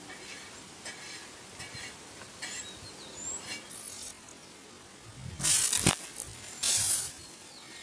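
Air-pressurised plastic bottle rocket launched by hand: a loud rush of escaping compressed air ending in a sharp pop as it lets go, then a second shorter rush about a second later. Faint bird or insect chirps sound before the launch.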